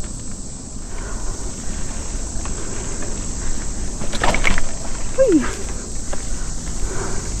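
Insects buzzing steadily at a high pitch over the rustle and rumble of movement along a wooded trail, with a brief rattle about four seconds in and a short falling squeak just after.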